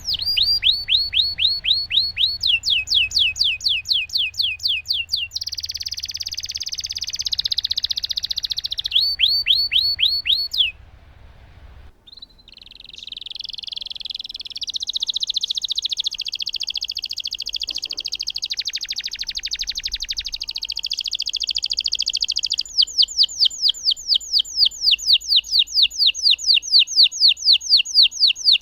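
A domestic canary in full song. Runs of quick, repeated down-sweeping whistled notes, several a second, alternate with long unbroken rolling trills, with one brief pause about eleven seconds in.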